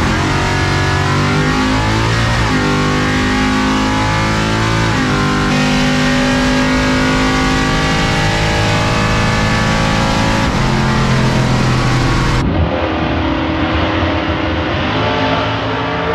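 A 700 hp C10 drag truck's engine running, heard from inside the cab and settling at a few different speeds. About 12.5 seconds in, the sound changes to trackside, with the drag truck and another race car accelerating down the strip and the pitch rising.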